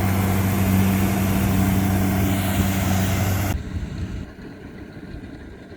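Rice harvesting machinery, a Kubota DC70 combine, running steadily with an even engine hum. About three and a half seconds in, the sound cuts off abruptly and only a much quieter low rumble remains.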